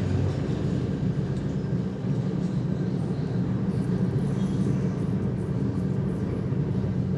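Steady low background rumble, even and unbroken, with no distinct events.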